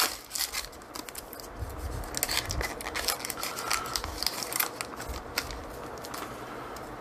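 Foil wrapper of a Panini Prestige football card pack crinkling and crackling as it is torn open and the stack of cards slid out, in many short irregular crackles.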